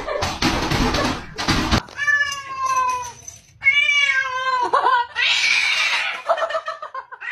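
A loud, noisy rumble cuts off sharply about two seconds in. A cat then meows twice, each meow long and falling in pitch, followed by rougher, noisier sounds.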